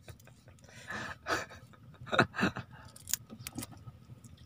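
Soft breathy chuckles from a person, a few short ones in the middle, among scattered light clicks and rustles of handling a freshly caught fish and hand line.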